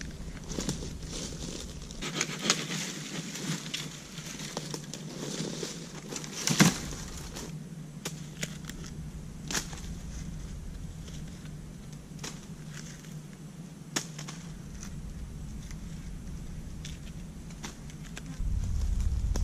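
Dry dead wood cracking and twigs snapping in irregular sharp clicks as a fallen branch is handled and trimmed into a walking stick, one louder crack about a third of the way through. A steady low hum sits underneath, and a low rumble comes in near the end.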